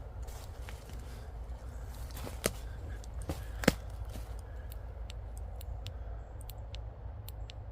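Footsteps through forest leaf litter, with two sharp twig snaps a little over a second apart, then faint light ticks.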